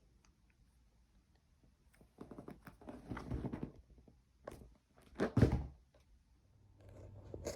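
Rustling and scraping for a couple of seconds, then a short knock and one loud thunk, as of something bumping against a hard surface.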